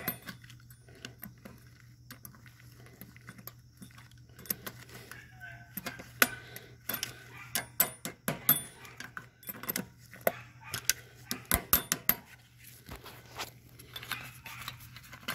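Pliers clicking and scraping on a steel cotter pin at a riding mower's front wheel hub as the pin is straightened and worked loose: a run of small, sharp metal clicks, thickest in the middle stretch. The pin looks broken in half.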